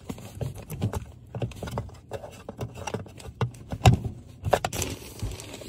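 Irregular clicks and knocks of an HVAC zone damper shaft being turned back and forth by hand in its sheet-metal duct, the loudest knock about four seconds in. The shaft has just been treated with silicone lubricant and is being checked that it turns freely.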